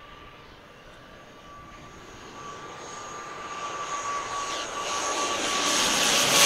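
ATR twin turboprop airliner on final approach, its engines and propellers growing steadily louder as it closes in low overhead. A steady high whine runs through the sound.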